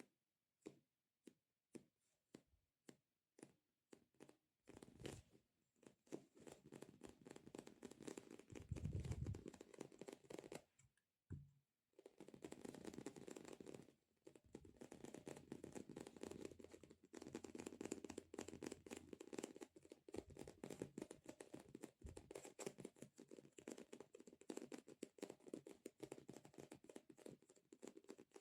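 Fingertips tapping and peeling on a sticky squishy stress toy: separate light taps about two a second for the first few seconds, then a fast, dense run of sticky crackling taps.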